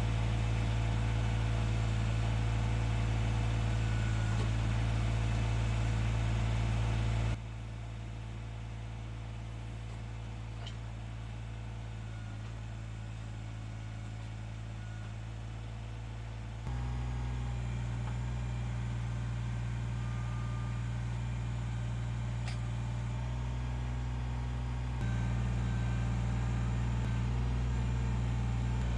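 Kubota tractor's diesel engine running steadily, most likely while digging a trench. The level changes in abrupt steps: quieter from about 7 seconds in, louder again at about 17 and 25 seconds.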